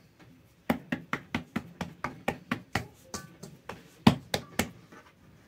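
A hand patting and pressing freshly kneaded yeast dough in an enamel basin: a quick run of sharp slaps, about four a second, for roughly four seconds, the loudest near the end.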